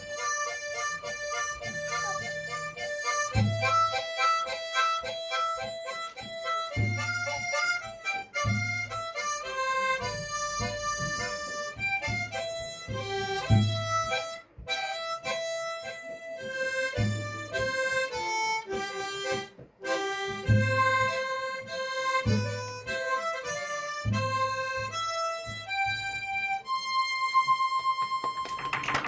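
Harmonica playing a melody over a backing track with a regular low bass beat. It ends on a long held note.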